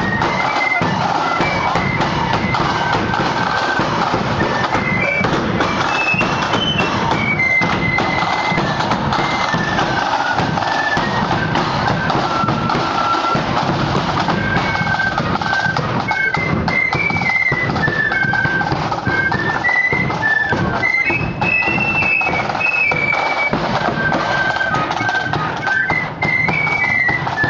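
Marching flute band playing a tune on many flutes in unison, the bright melody stepping from note to note, with drums beating the march underneath.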